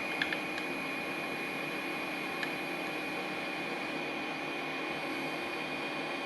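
Artillery Sidewinder X1 3D printer running during filament loading: a steady fan-like whir with a constant high whine from the extruder drive and cooling fans, and a few faint clicks near the start and again about two and a half seconds in.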